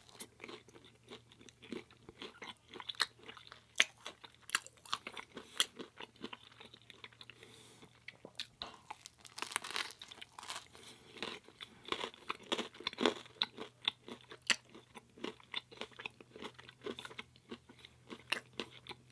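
Close-up chewing of a crispy baked pizza crust: irregular, rapid crunches as the crust breaks between the teeth.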